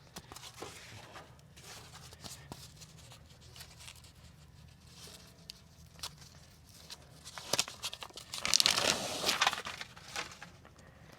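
Sound-deadening foam being handled and pressed into place on a diesel heater case: scattered rustling and crinkling, with a louder stretch of tearing and crinkling about eight and a half seconds in, lasting over a second.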